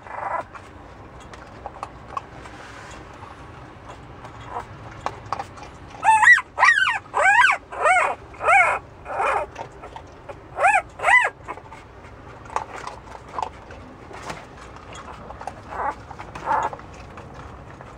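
Very young puppy whimpering: a run of about eight short, high-pitched whines, each rising and falling in pitch, about six seconds in. Faint scattered scuffles and clicks come before and after.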